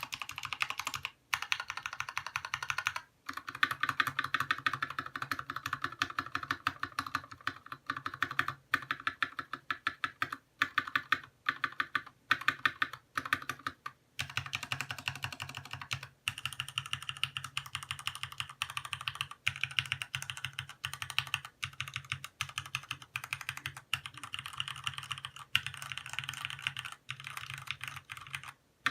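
Fast continuous typing on a Keywalker IFD68 mechanical keyboard with Cherry MX Red linear switches and ABS keycaps, rapid key clacks with a few brief pauses; the typing stops at the very end.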